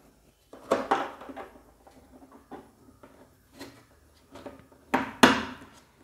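Small clicks, taps and rustles of hands handling wires and plastic connectors inside an RO water purifier's cabinet, with two sharper knocks about five seconds in.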